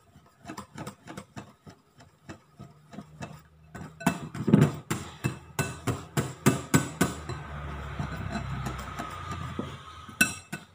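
Wire whisk beating egg-yolk batter in a ceramic bowl: quick, light clinking taps of the whisk's wires against the bowl, faint at first and louder from about four seconds in.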